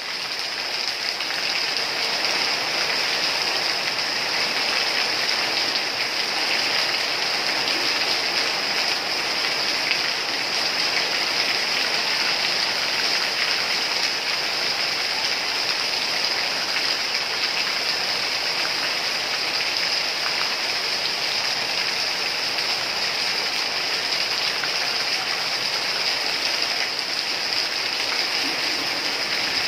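Rain falling steadily, an even, unbroken wash of sound with no pauses or single drops standing out.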